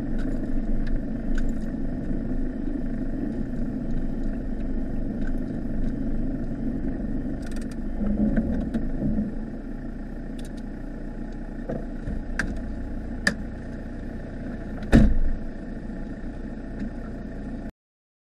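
Mitsubishi Delica's 2.8-litre turbo-diesel engine running, heard from inside the cab while driving a rough track. It drops to a quieter idle about ten seconds in as the van comes to a stop. A few sharp knocks follow, the loudest about fifteen seconds in, and the sound cuts off suddenly near the end.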